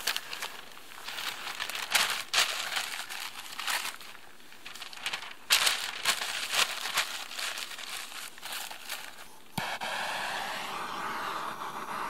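Newspaper being crumpled and rustled in a run of crackly crinkles. About three-quarters of the way through, a handheld gas torch clicks on and hisses steadily.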